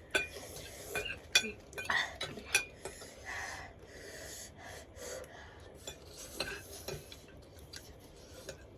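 Metal spoons clinking and scraping against dishes while instant noodles are eaten fast, in irregular sharp clinks, a cluster of them between about one and three seconds in.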